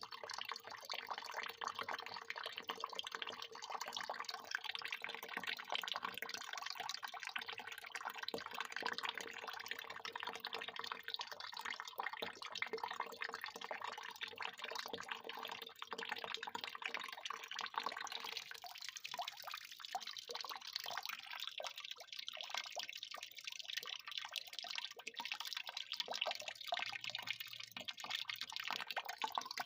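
Water pouring in a continuous stream and splashing. About two-thirds of the way in, the deeper part of the sound drops away and the splashing turns thinner and more broken.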